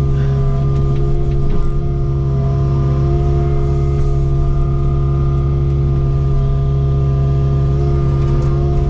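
Kubota KX057-4 excavator's diesel engine running steadily, an even hum that holds one pitch.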